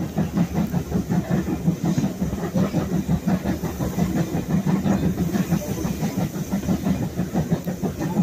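Steam-hauled heritage train on the move, heard from aboard a carriage: a steady low rumble with a rapid, uneven rattle of wheels and coach.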